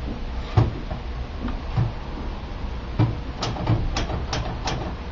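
Keys of an LC Smith manual typewriter being struck one at a time, each a sharp clack. There is a single clack about half a second in, then a run of about six, roughly three a second, in the second half.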